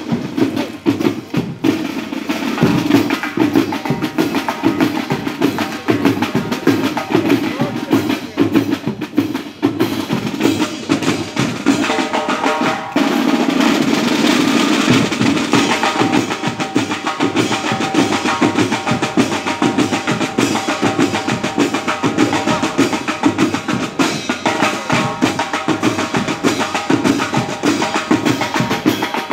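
Drum-led music: a dense, fast stream of drum strokes throughout, with pitched instruments joining about twelve seconds in.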